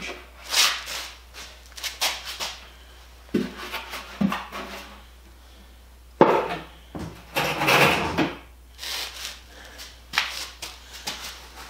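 Handling noise from a large plastic mower-bagger discharge chute being moved about and set down: a string of scrapes, rubs and knocks with quiet gaps, the sharpest knock about six seconds in.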